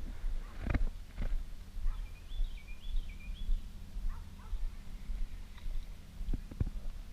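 Steady low rumble on the camera microphone with a few dull knocks, and a bird singing a short warbling phrase in the middle.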